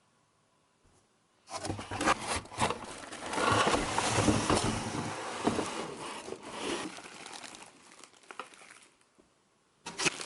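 Plastic packaging crinkling and rustling as it is handled and pulled off new vacuum cleaner parts. It starts about a second and a half in, with many sharp crackles, and dies away near the end.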